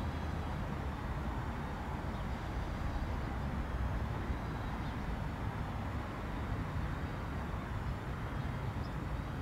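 Airbus A319 jet engines running at low thrust as the airliner rolls along the runway after landing: a steady low rumble with a faint high whine.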